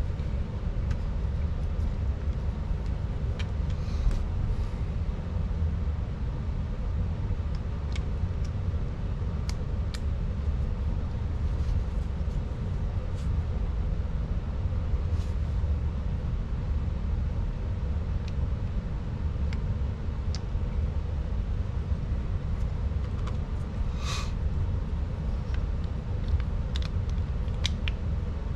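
Light scattered clicks and taps of small parts being handled as an RC truck's differential is reassembled, one firmer click about 24 seconds in, over a steady low background rumble.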